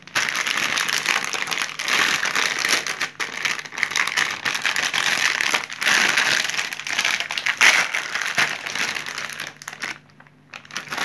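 Shiny plastic blind-bag packet crinkling and crackling as it is handled and opened by hand, stopping briefly near the end.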